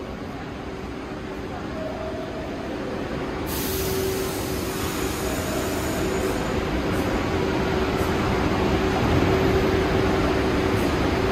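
New York City subway train at a station platform, its rumbling noise building steadily louder. A sudden hiss starts about three and a half seconds in, and a steady tone runs underneath.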